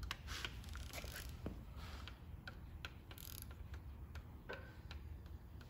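Faint, scattered clicks and light metallic ticks from hand work on a small-block Chevy 350's valvetrain: a rocker arm adjusting nut being turned while the pushrod is worked up and down to find zero lash.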